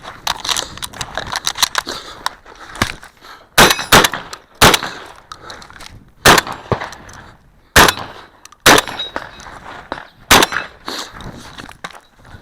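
Shotgun firing during a stage, heard from close up: about seven loud shots at irregular spacing, some in quick pairs, with smaller clicks and clatter of gun handling between them.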